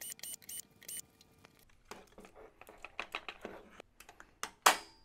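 Cordless Ryobi drill-driver running in short pulses, about four a second with a whine, for about the first second as it backs a screw out of the gel blaster's plastic gearbox shell. Then plastic parts click and knock as the gearbox is handled and pulled out, with one sharp loud clack near the end.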